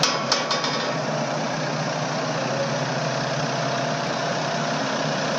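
Steady engine noise of airport ground equipment and aircraft on an apron: an even hum under a constant hiss. A few sharp clanks come in the first half second.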